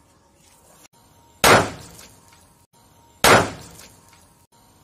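A large chunk of sodium metal reacting explosively with water in a plastic bucket: two sharp bangs, about a second and a half in and again near three seconds, each dying away over about half a second.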